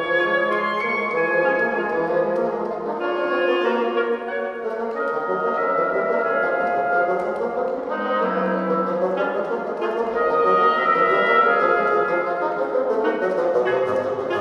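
Oboe, clarinet and bassoon playing together as a woodwind trio, several melodic lines moving at once in a lively contemporary classical piece.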